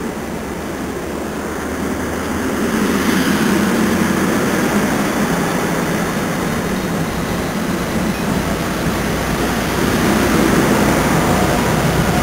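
NJ Transit commuter train's passenger coaches rolling along the platform, a steady rumble of wheels on rail that grows louder about three seconds in.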